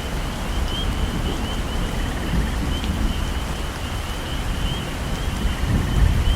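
Heavy rain falling steadily in a tropical forest, with a low rumble that swells about two seconds in and again near the end. Over the rain, a small animal gives short rising chirps about twice a second.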